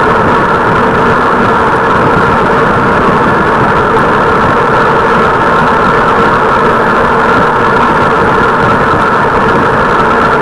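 Steady, loud road and wind noise from travelling along the road, with no breaks or separate events.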